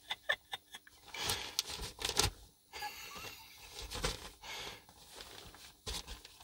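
A cat scratching and rustling a fabric blanket as it rubs and rolls on it, excited by catnip: a quick run of sharp scratchy clicks in the first second, then scattered rustling scrapes.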